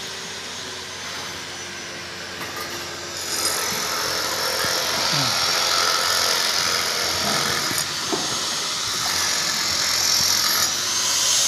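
Steady mechanical hiss that gets louder about three seconds in.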